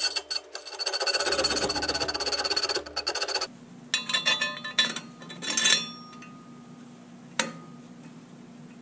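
Metal hand-work on a steel plate: a few clicks, then a fast, even rasping run lasting about two and a half seconds, then a handful of sharp metallic taps with a short ring as a carriage bolt is set into its hole in the plate.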